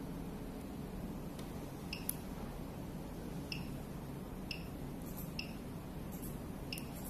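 Short, high clicks at irregular intervals, five of them, over a steady low hum.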